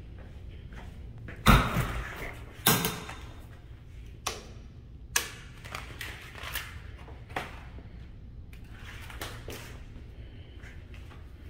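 Heavy walk-in cooler door being worked: its lever latch and the insulated door give two loud clunks a little over a second apart, followed by several lighter clicks and knocks.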